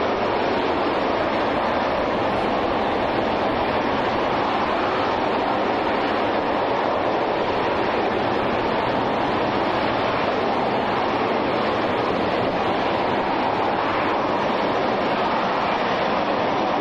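RS-25 liquid-hydrogen rocket engine (Space Shuttle Main Engine) firing on a static test stand: a steady, even rush of exhaust noise that holds the same level throughout.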